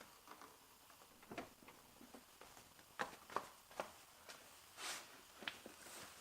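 Faint, scattered clicks and light knocks of a door handle and small parts being handled and fitted inside a car door, with a brief rustle near the end.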